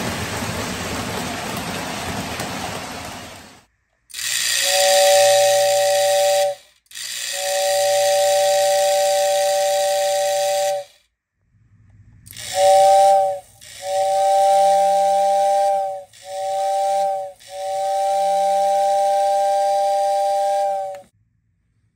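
A postwar Lionel O-gauge train running on three-rail track for the first few seconds, as a steady rumbling noise that cuts off. Then the motor-driven whistle in a Lionel whistle tender, bench-tested with its shell off after rewiring, blows six blasts of its two-note chord with a hiss of air: two long ones, then short and long in turn.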